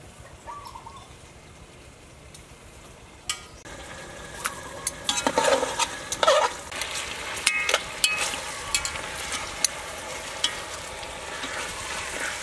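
Chicken pieces sizzling in a hot aluminium pot while a metal utensil stirs them, clacking and scraping against the pot. The sizzle starts suddenly about three and a half seconds in, with the loudest clattering a couple of seconds later.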